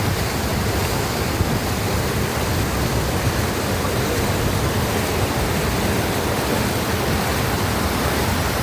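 Lake water overflowing its surplus weir in a steady, continuous rush, like a waterfall.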